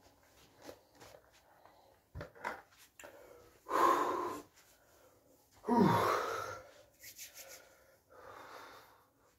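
A man's loud, heavy breaths close to the microphone: two big exhales about four and six seconds in, the second dropping in pitch into a voiced sigh, and a softer breath near the end. There is a short knock a little after two seconds in.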